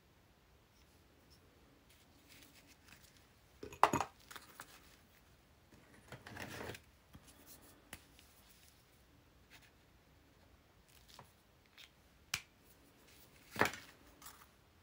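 Handling sounds of a rubber stamp and a paper envelope on a wooden craft table: a sharp knock about four seconds in, a paper rustle a couple of seconds later, then a few light clicks and another sharp knock near the end.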